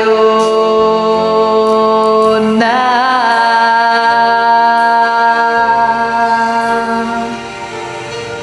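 A woman singing over a karaoke backing track, holding a long note, then sliding into a second long note with vibrato about two and a half seconds in. The second note fades near the end, leaving the backing music.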